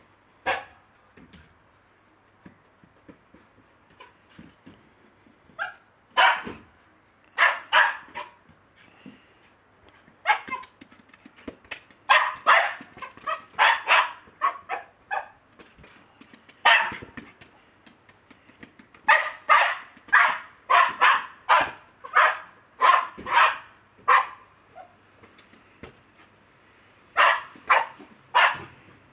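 Lakeland terrier barking: short, sharp barks in quick runs of several at a time, with pauses between the runs.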